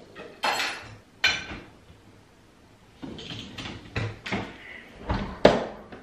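A series of short household knocks and clatters, about eight in all, two near the start and a quicker run in the second half, the last one the loudest.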